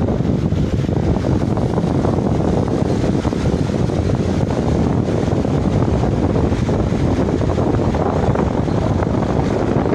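Loud, steady, distorted crowd noise from a packed room of people celebrating.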